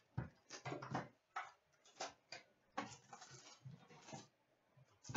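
Cardboard hockey card box (Trilogy) being handled on a glass counter and opened, with its foil packs pulled out: a faint, irregular run of taps, scrapes and crinkles.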